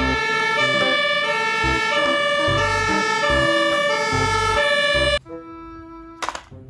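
Fire truck siren sounding loudly, stepping back and forth between high and low tones, with low rumbles underneath. It cuts off suddenly about five seconds in, leaving a quieter held tone and a couple of clicks.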